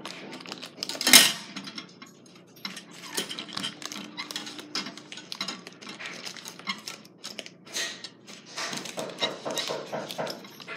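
Handling noise from a paper lantern lamp being assembled: a run of small clicks and clinks from the wire frame against the plastic lamp socket, with the paper shade rustling. One sharp knock stands out about a second in.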